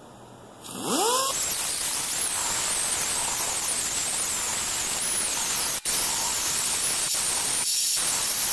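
Pneumatic die grinder spinning up about a second in, then running steadily with a high, wavering whine and air hiss. Its cone-shaped burr is grinding out the aluminium exhaust ports of a VW 1.8T 20-valve cylinder head. The sound dips briefly twice near the end.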